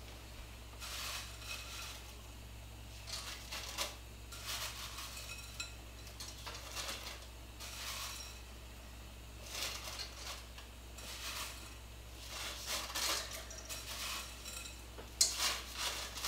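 Broken dry spaghetti strands rattling and clinking against a glass bowl as handfuls are tipped and pushed into a pot of hot sauce, in a series of short clattering bursts every second or two.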